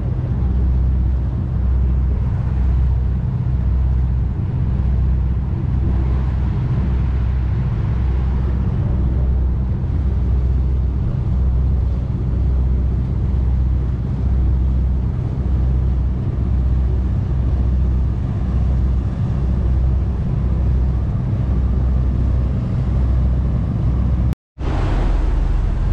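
Tour riverboat's engine droning steadily under way, with a low regular swell about every second and a half and the rush of water along the hull. The sound drops out for a split second near the end.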